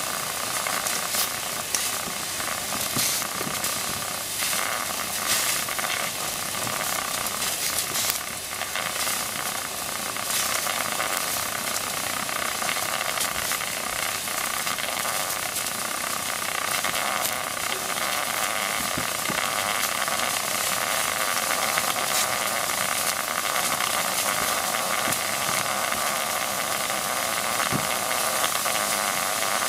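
Wilesco D24 toy steam engine's boiler hissing and sizzling steadily while under steam pressure, with light crackling during the first ten seconds or so.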